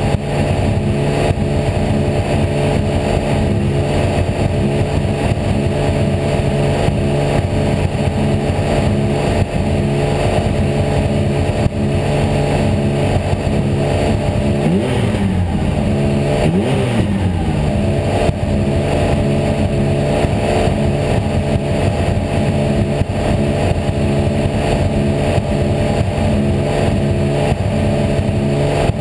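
Porsche 911 GT3 R race car's flat-six engine running, heard from inside the car, at fairly steady revs, with the pitch briefly dipping and rising again twice about halfway through.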